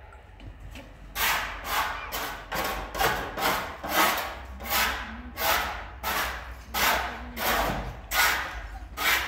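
Steady rhythmic rasping strokes, about three every two seconds, starting about a second in, like a tool working against wood.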